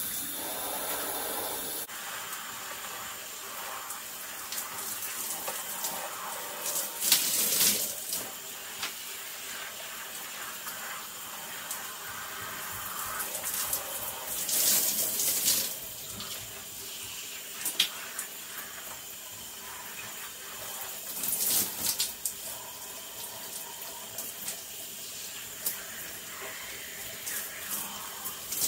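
Shower water falling steadily and splashing over a person's head and hands as shampoo is rinsed out of long hair, with louder spells of splashing three times.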